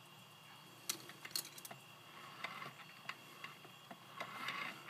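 Scattered light clicks and taps of the removable plastic body panels of a 1/18 scale diecast Smart Fortwo model being handled, with a short rustle near the end.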